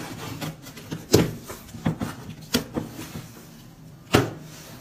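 Short knocks and clunks of things being handled, three sharper ones spaced a second or more apart with softer bumps between.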